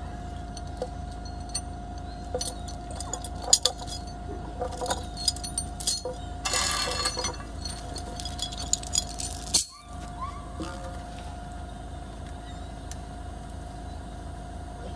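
Yale forklift engine idling steadily while a steel chain clinks and rattles as it is handled and wrapped around a wooden fence post, with a louder burst of chain rattling about six and a half seconds in.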